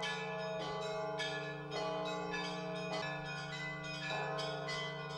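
Orthodox monastery church bells ringing: several bells of different pitch are struck a little more than once a second, each ringing on over a steady low hum.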